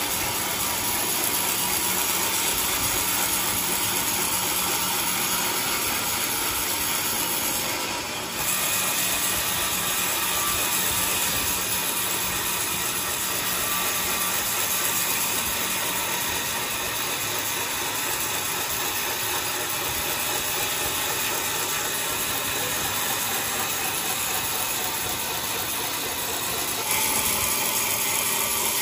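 Large sawmill saw running through coconut wood: a steady, dense, hissing machine noise, with a brief dip about eight seconds in and a change in tone near the end.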